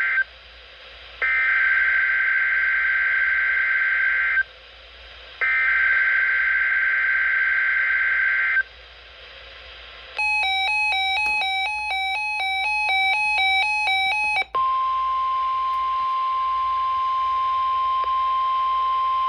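NOAA Weather Radio Emergency Alert System (EAS) alert. First come three screechy data bursts of the encoded SAME header, which starts a new flash flood watch. Then comes a few seconds of electronic beeping alternating between two pitches, then the steady 1050 Hz warning alarm tone held for about five seconds.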